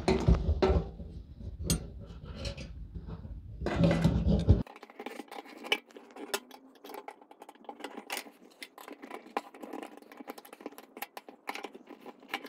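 Many small metallic clicks, ticks and scrapes as a fuel pump assembly is worked into the opening of a steel fuel tank by hand and resists going in. A low rumble lies under the clicks for the first few seconds.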